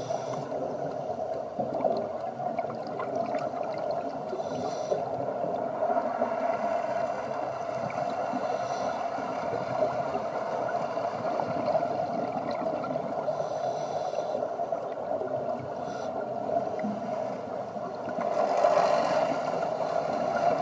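Scuba breathing heard underwater: a steady muffled regulator and water noise, with short bursts of exhaled bubbles about every four to five seconds, the loudest near the end.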